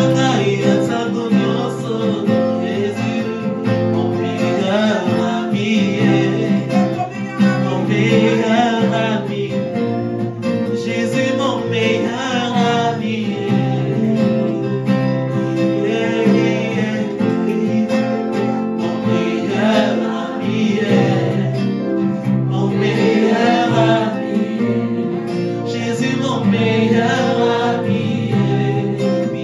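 Live Christian worship song: an acoustic guitar strummed over sustained chords from a Technics KN1000 keyboard, with singing voices on top.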